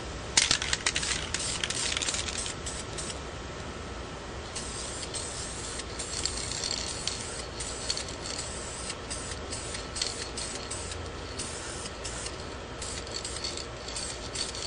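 White paint being sprayed through a stencil onto the frame: a string of short, uneven hissing spurts, with a few sharper clicks in the first couple of seconds.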